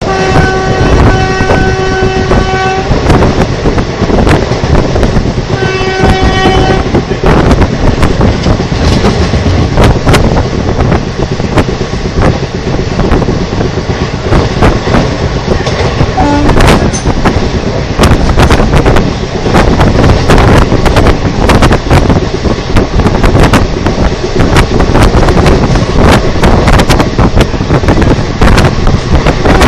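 WAP-4 electric locomotive sounding its horn: one long blast, then a shorter one a few seconds later. After that comes the loud clatter of an express passenger train's wheels over the rail joints as it passes at speed, and the horn starts again at the very end.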